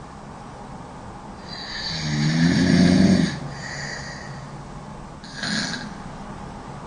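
A woman snoring loudly: one pitched snore builds up over about a second and a half and cuts off abruptly, followed by a softer breath and, near the end, a short noisy breath.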